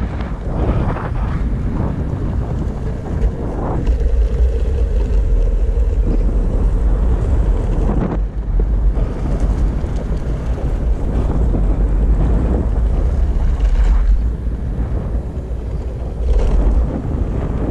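Wind buffeting the microphone while riding a Backfire Ranger X2 electric all-terrain skateboard: a loud, uneven low rumble, with a faint steady hum for the first six seconds or so.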